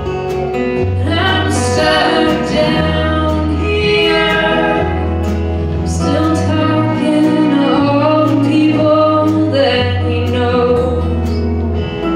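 Folk-country band playing live: a woman sings lead over strummed acoustic guitar, with electric guitar, keyboard, held bass notes and light drums and cymbals behind her.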